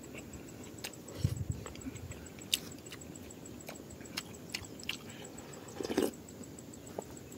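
Close-up mouth sounds of eating: chewing with scattered small clicks, then sipping and slurping broth from a steel bowl in a louder cluster near the end.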